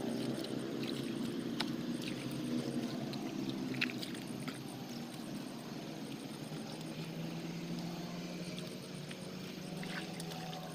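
A motor engine running steadily, its pitch slowly drifting up and down, with scattered light clicks.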